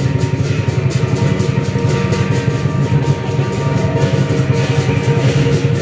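A string of firecrackers going off in a dense, continuous crackle of rapid irregular bangs.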